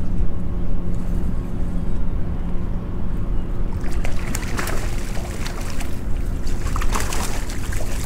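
Steady low hum of the small boat's outboard motor running, with wind rumble. From about four seconds in come irregular splashes of a hooked fish thrashing at the surface as it is reeled to the boat.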